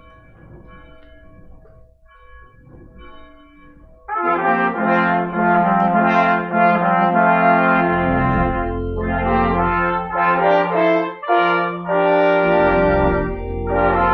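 A brass ensemble, trombones among them, comes in loudly about four seconds in, playing full chords. Before that only faint held notes are heard.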